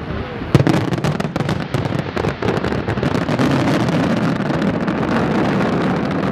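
Fireworks display: a loud bang about half a second in, then a dense, continuous barrage of rapid bangs and crackling.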